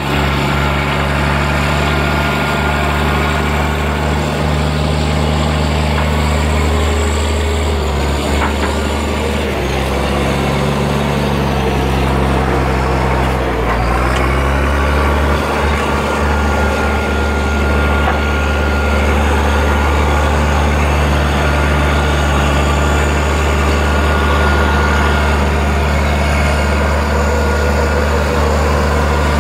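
Caterpillar D6C crawler dozer's diesel engine running hard under load as its blade pushes a large boulder. The engine note dips and recovers twice in the first half, then holds steady.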